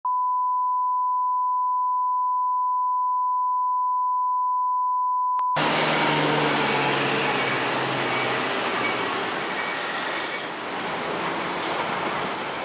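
A steady test tone for about five and a half seconds that cuts off suddenly. A Mitsubishi Fuso Aero Midi MK (KK-MK23HM) city bus's diesel engine then runs as the bus pulls in to the stop, with a short sharp sound about ten seconds in.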